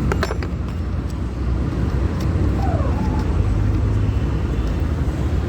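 Steady low rumble of motor-vehicle noise, with a few sharp clicks right at the start.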